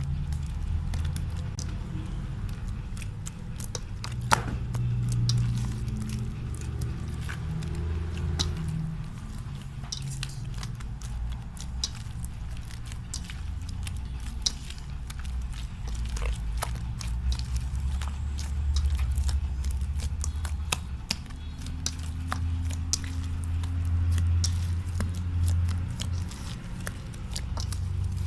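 A large batch of slime being squeezed and worked by hand, giving many small, irregular clicks and crackles over a low rumble of handling.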